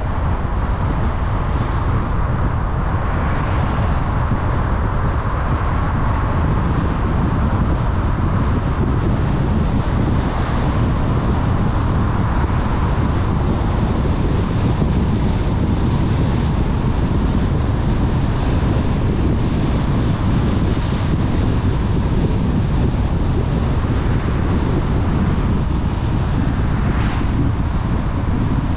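Steady road noise of a car driving: a low rumble from tyres and engine with a hiss of wind over it.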